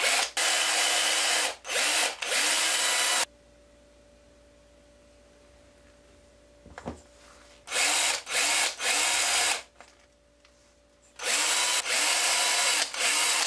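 Cordless drill with a small bit drilling into a carved wooden crankbait body, run in short trigger pulls that each spin the motor up. There are three spells of drilling with quiet pauses between them.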